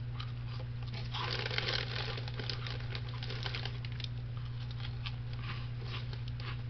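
Crinkling and rustling of a plastic snack bag, a dense run of small crackles, over a steady low hum.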